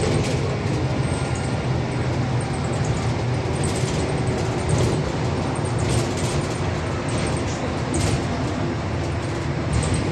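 Cabin noise of a VMZ-5298.01 trolleybus on the move: a steady low rumble of tyres and running gear with a faint whine, and a few light rattles.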